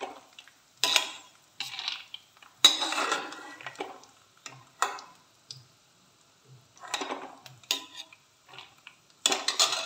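Steel skimmer ladle scraping and clinking against a steel kadhai as fried peanuts are scooped out of hot oil and tipped onto a steel plate, in a series of separate clatters, with the oil sizzling faintly underneath.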